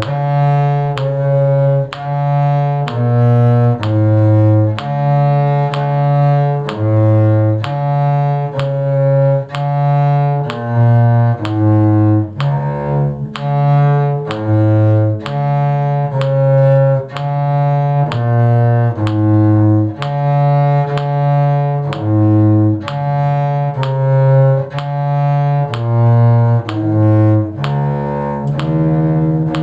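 A low bowed string instrument playing a slow, steady bass line in 6/8 time, sustained notes changing about once a second, one note to each dotted-quarter beat.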